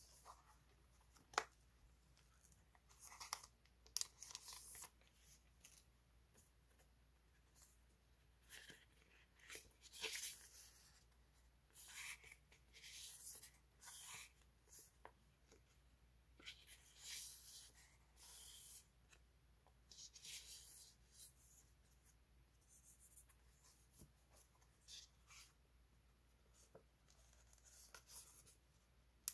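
Printed paper cards and sheets handled up close: soft, intermittent rustles, slides and flicks of paper, with a couple of sharp clicks in the first few seconds.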